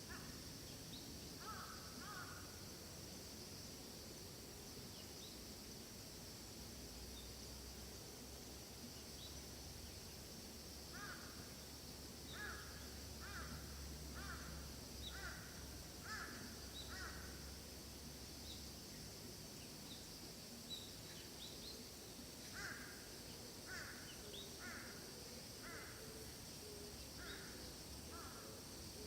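A bird giving two runs of repeated calls, six or seven in a row, one about every half second to second. Smaller birds chirp faintly over a steady high hiss.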